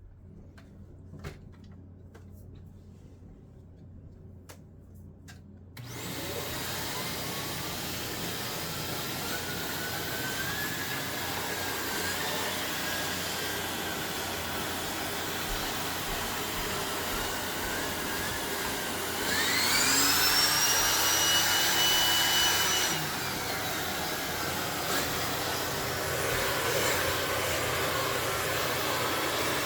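A few light clicks, then a Shark Navigator Lift-Away Pro upright vacuum cleaner switches on suddenly about six seconds in and runs, its motor whine wavering in pitch. About twenty seconds in it gets louder for a few seconds, with a rising whistle that then holds, before settling back to its running level.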